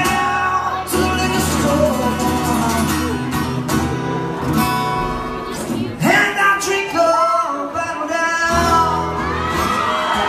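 Live music: a man singing while playing guitar, heard from within the audience.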